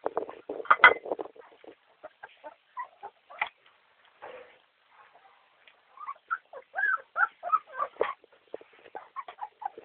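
Young boxer puppies squeaking and whining in a quick string of short high calls, loudest about a second in and sparser in the middle.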